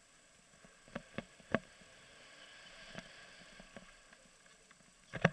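Downhill mountain bike rolling over a wooden plank boardwalk: a few sharp knocks and rattles from the bike about a second in, a faint rush of wind and tyres, then a burst of loud clattering knocks near the end.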